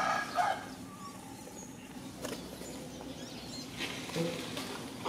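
A rooster's crow ending about half a second in, then outdoor background with a few faint bird chirps and light rustling.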